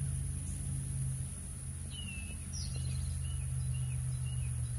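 Outdoor ambience: a steady low hum under a thin, steady high insect drone, with a few short bird chirps about two to three seconds in.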